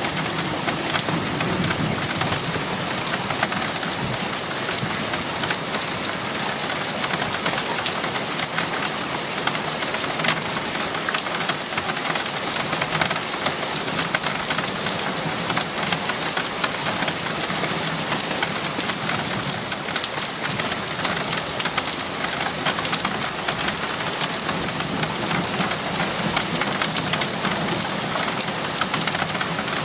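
Heavy, steady rain falling during a thunderstorm, a dense patter of drops on surfaces. The tail of a low thunder rumble fades out in the first moment.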